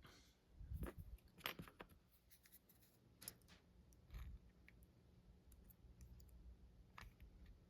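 Faint, scattered small clicks and taps from a Master Lock 532 padlock being handled and locked back up after picking.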